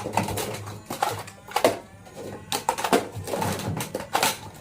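Plastic toy foam-dart blaster being worked and fired: a string of sharp plastic clicks and clacks, about seven of them, irregularly spaced.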